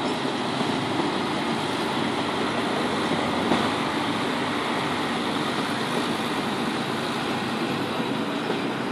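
ALn 668 diesel railcar running slowly along the track, giving a steady engine sound mixed with wheel noise.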